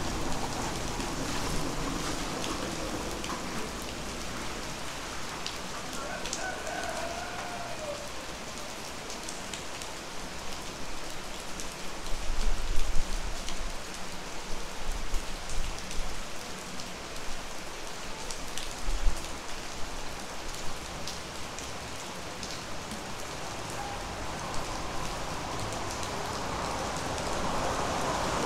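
Steady rain falling on foliage and rooftops, an even hiss. A few louder low thumps come around the middle, and near the end a vehicle's sound starts to rise in.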